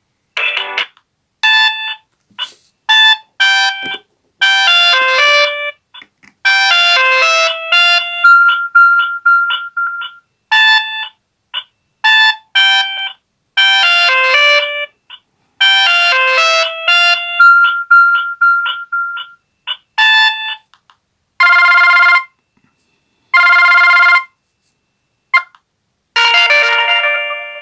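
Samsung SGH-M140L mobile phone playing its built-in ringtones through its loudspeaker. A quick melodic tune with a repeating phrase of short notes runs for about twenty seconds, then a ring of two long, even tones follows, and another tune starts near the end.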